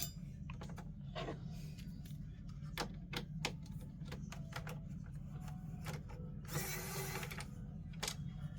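Scattered small clicks and taps of a screwdriver and plastic console parts being handled during disassembly, with a brief scraping rustle about six and a half seconds in, over a steady low hum.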